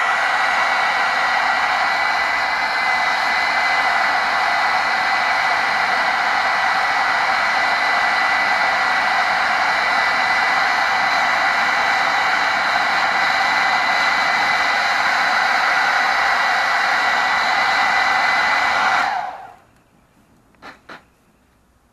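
An old hairdryer used as a blower on a coal fire, running steadily with a rushing whoosh and a thin high whine. It shuts off near the end, and two quick clicks follow.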